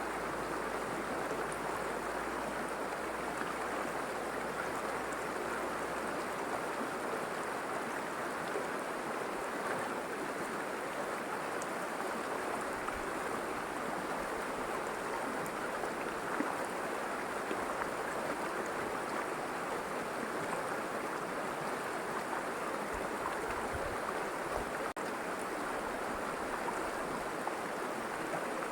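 River water flowing and rushing over stones, a steady, even rush with small splashes and gurgles.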